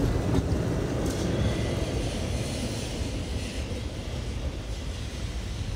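Steady low rumble of street traffic and a passing tram, easing slightly and then cutting off abruptly at the end.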